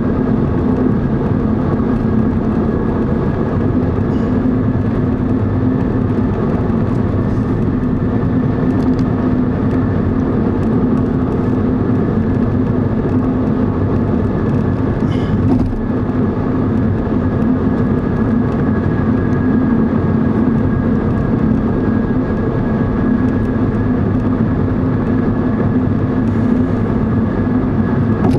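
Steady road noise inside a car cruising at highway speed: tyre roar and engine hum, with a faint steady high whine above it.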